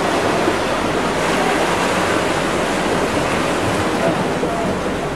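Steady rushing noise of wind and sea water, with no distinct events standing out.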